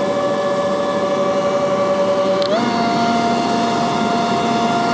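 Cordless battery-powered leaf blower running with a steady whine on its quiet, low setting. About two and a half seconds in, the pitch steps up a little as the motor speeds up.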